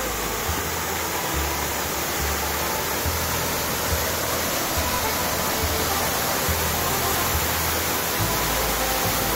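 Waterfall about 5–6 m high pouring into a plunge pool: a steady rush of falling water.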